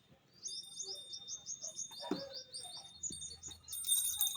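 A small bird singing a fast series of short, high chirps, several a second, in runs that drop in pitch, louder near the end.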